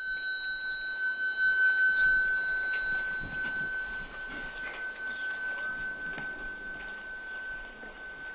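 A small bell struck once, ringing out with one clear high tone that fades slowly; its higher overtones die away within the first few seconds.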